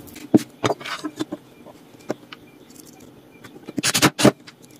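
Handling of steel concealed cabinet hinges and screws on a plywood door: scattered light metallic clicks and knocks as the hinge cups are seated, then a quick cluster of louder sharp clicks near the end.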